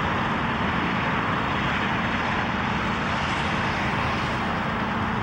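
Steady rumble of a tour bus's engine, with a constant low hum and an even noisy wash that neither rises nor falls.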